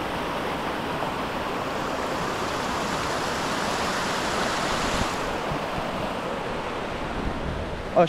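Water rushing steadily down a small travertine waterfall, an even, dense rush that eases slightly after about five seconds.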